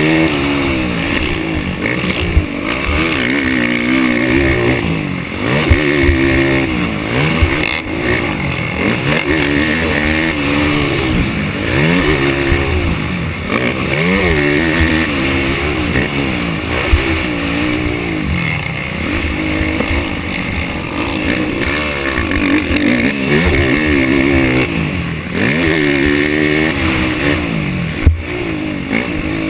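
Racing ATV engine revving hard and easing off again and again as the throttle is worked on and off, its pitch climbing and falling every second or two, with a few sharp knocks.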